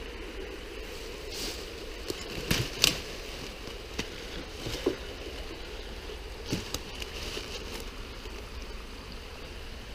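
Ivy, twigs and dry leaves rustling and snapping as they are pushed aside and rummaged through by hand, with a few sharper cracks, the loudest about two and a half seconds in, over a steady low background noise.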